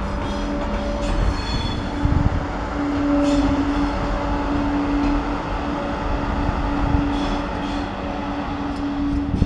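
TGV high-speed train moving slowly at low speed: a steady electrical hum from the power car over the rumble of the wheels, with a few brief high squeals.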